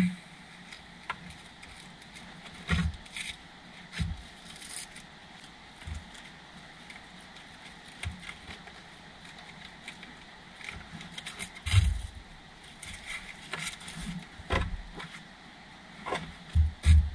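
Irregular rustling and scraping of nylon webbing straps as grab handles are fitted around a Jeep Wrangler's padded roll bar, with scattered knocks and thumps. The heaviest knocks come about twelve seconds in and twice near the end.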